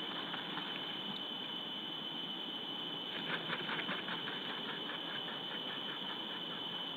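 Steady hiss of an outdoor webcam microphone with a constant high whine. About three seconds in comes a quick run of soft ticks lasting about a second, then fainter ones.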